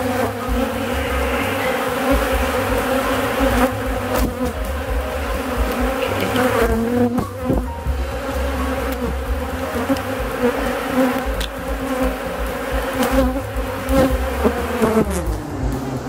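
Honeybees from an open hive buzzing close by: a steady, dense droning hum, with a few light clicks, and a hum that drops in pitch near the end.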